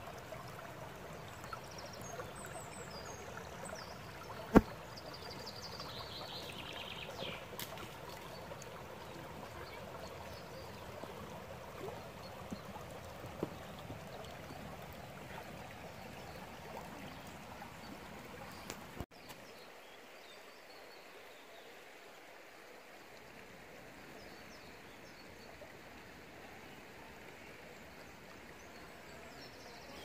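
Shallow river running over and between stones and boulders, a steady babble of flowing water, with one sharp click about four and a half seconds in. About two-thirds of the way through the water sound drops abruptly and becomes quieter and thinner.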